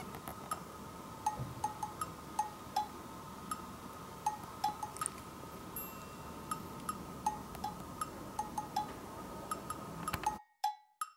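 Small wind chime tinkling on and off, its bright ringing note struck irregularly a couple of times a second over faint room noise; it cuts off suddenly near the end.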